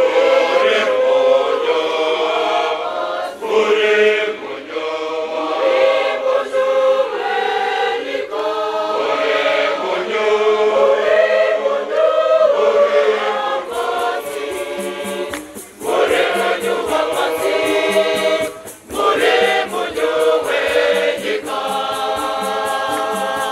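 Choir singing a Shona Catholic hymn in several parts, the voices coming in together at the start. About halfway through, a shaker rattle joins in with a steady beat.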